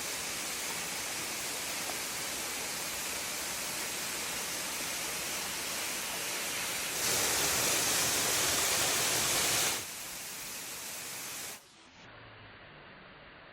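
Steady rushing of a waterfall, an even hiss-like noise; it gets louder for a few seconds in the middle, then drops to a much fainter, duller rush near the end.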